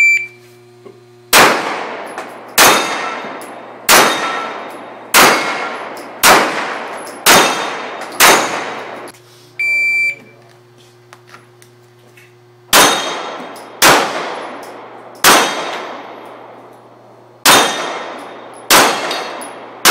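An electronic shot timer beeps, then a pistol fires a string of about seven shots, roughly one a second, each followed by the ringing clang of steel plates on a Texas Star spinning target. Near the middle the timer beeps again and a second string of about seven shots and steel rings follows.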